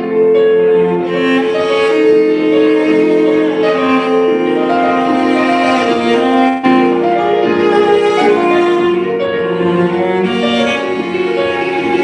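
Cello and digital piano playing an acoustic chamber piece, the cello bowing long held notes over the piano part.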